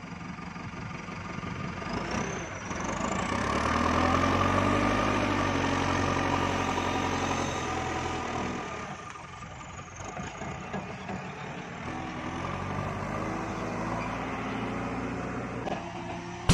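JCB 3CX backhoe loader's diesel engine working under load. It revs up and gets louder about three seconds in, eases back near nine seconds, then picks up again.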